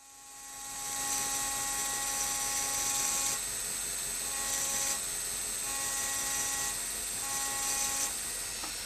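High-speed rotary engraving drill grinding into an optical crystal perfume bottle: a steady high-pitched whine over a hiss. It fades in over the first second, and the whine drops out and returns several times.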